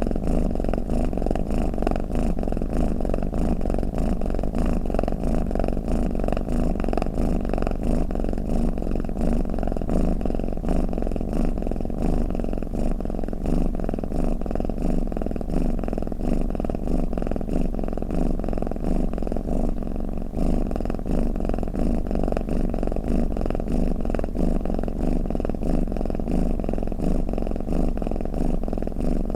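Domestic cat purring: a steady low rumble that runs on without breaks.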